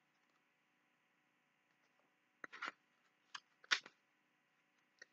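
A few short, crisp paper rustles and clicks from a picture book being handled as its page is turned, the loudest a little before four seconds in, against a quiet room.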